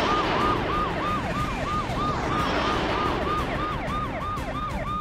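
Police siren sound effect in a fast yelp, a tone that drops and snaps back up about three times a second, over a rushing noise that swells and fades twice.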